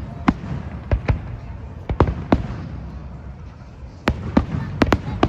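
Fireworks going off: about ten sharp bangs at irregular intervals, some in quick pairs, with short fading tails over a low rumble.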